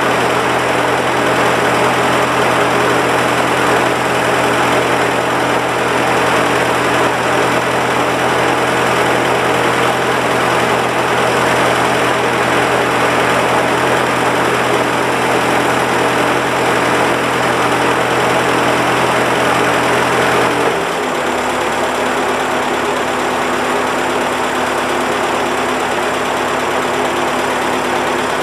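1948 Ford 8N tractor's four-cylinder flathead engine running steadily after a cold start, then dropping to a slower idle about 21 seconds in.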